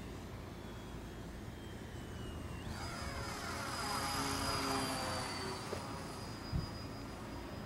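Brushless electric motor and propeller of a Ratan Quickie 380 RC plane whining in flight. About three seconds in, the pitch jumps sharply higher as the throttle opens. The sound grows loudest as the plane passes close overhead, then eases off a little.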